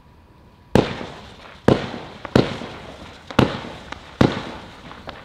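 Celtic Fireworks 'Serenity' 35-shot 25mm firework cake firing: five loud shots about a second apart, each trailing off, with a few fainter pops between them.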